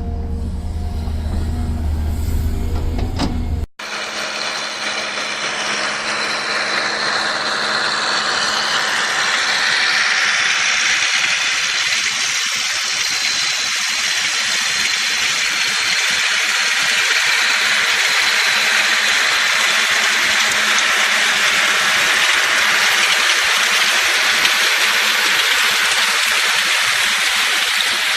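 A heavy machine's engine running with a low rumble; after a sudden cut a few seconds in, a steady loud hiss with little rumble under it takes over.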